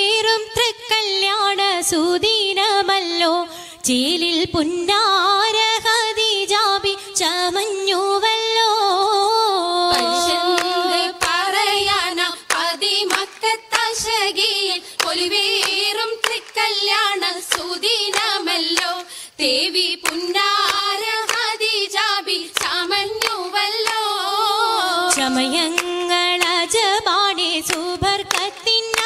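Oppana song: a high voice singing a melismatic Mappila melody, with the dancers' hand claps sounding along in a lively rhythm.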